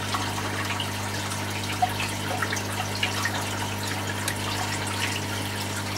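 Aquarium water bubbling and trickling, with scattered small pops, over a steady low electrical hum from running tank equipment.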